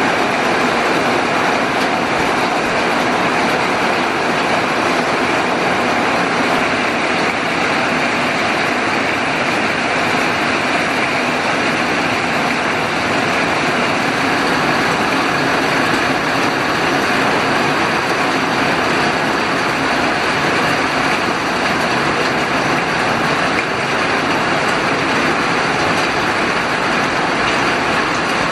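Heavy rain pouring steadily, an even hiss with no letup.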